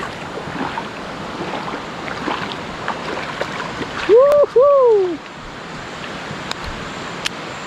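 Steady rushing of stream water over rocks near a waterfall. About four seconds in there is a short two-part gliding tone, rising then falling, that stands out above the water.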